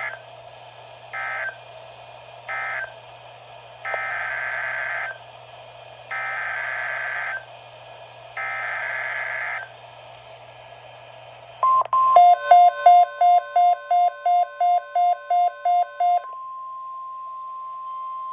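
NOAA Weather Radio alert signalling. First come the screechy SAME digital data bursts: three short end-of-message bursts, then three longer header bursts that open a new alert. Then a rapid electronic beeping, about three beeps a second, sounds for some four seconds. After that the steady weather radio warning alarm tone begins.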